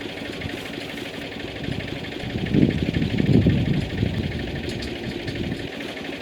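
An engine running steadily, with a louder low rumble for about a second and a half in the middle.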